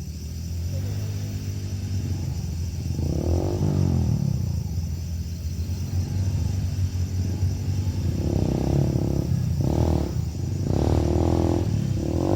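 Trail dirt bike engine rumbling and revving up and down as it labours up a climb, with a quick run of revs near the end.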